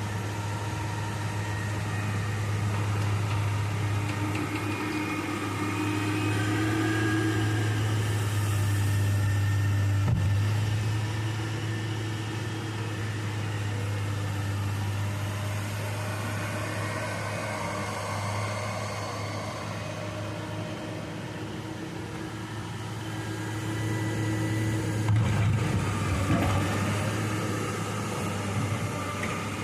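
Excavator's diesel engine running steadily with a strong low hum, while higher tones rise and fall as the machine works. A few short knocks sound near the end.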